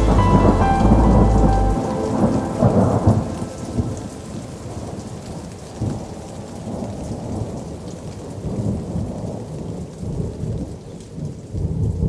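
Background music fades out over the first two seconds or so, giving way to steady rain with thunder rumbling in irregular swells.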